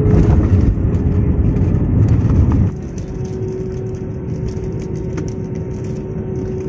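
Cabin noise of an Airbus A320-family jet landing, heard beside the wing: a loud, steady roar of engines and rushing air with a thin steady hum. About two and a half seconds in, the roar drops suddenly to a quieter, slightly lower-pitched rumble as the jet rolls out on the runway with its ground spoilers raised.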